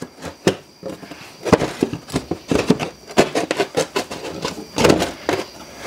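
Metal electrical cut-in box scraping and knocking against the cut edges of the drywall as it is pushed into the hole for a dry fit: a run of quick, irregular clicks and scrapes, loudest near the end. The hole is a little too tight for the box.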